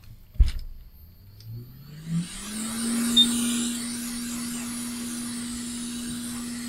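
A knock, then a hot air rework station's handpiece fan spinning up in a rising hum and blowing steadily with a hum and an airy hiss, heating the board.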